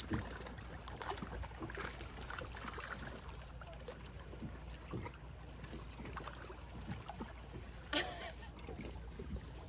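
Water sloshing and lapping with small splashes, around someone standing in shallow water. A short vocal sound about eight seconds in.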